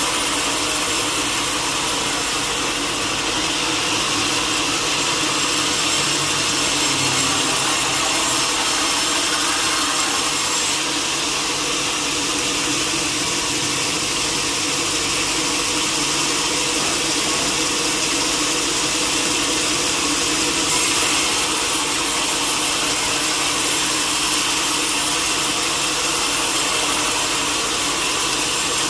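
Power saw cutting through wood: a steady, unbroken sawing noise.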